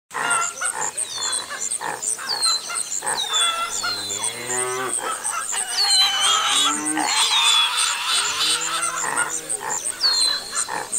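Cattle mooing several times, long drawn-out calls, over steady chirping of small birds.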